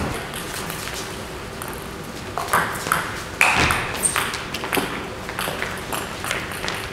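Table tennis ball clicking off bats and table in a quick rally: sharp hits come several to a second from about two and a half seconds in, with only a few faint taps before that.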